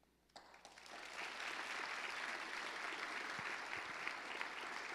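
Congregation applauding. The clapping starts about half a second in and builds over the next second into steady applause.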